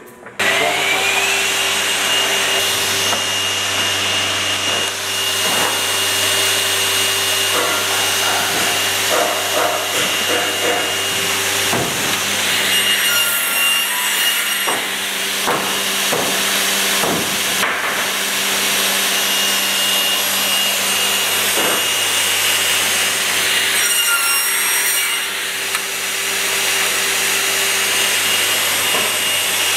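Graule angle and mitre saw starting up about half a second in, its whine rising quickly and then running steadily with a constant hum. Short knocks and clunks recur over it as timber is positioned and cut, the saw's sound changing briefly as the blade goes through the wood.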